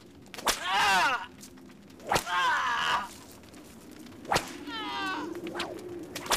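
A whip cracking four times, roughly every two seconds, each crack followed by a short cry that falls in pitch.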